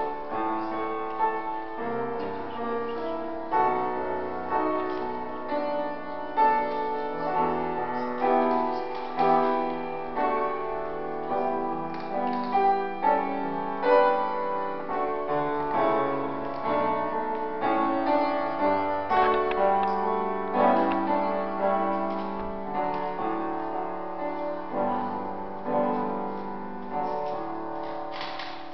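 Piano playing an instrumental piece, chords with a melody line, with no singing.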